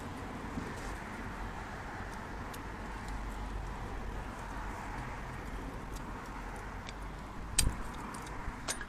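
Metal gearbox parts being handled, with a few light clicks and one sharp knock about three-quarters of the way through, over a steady background noise.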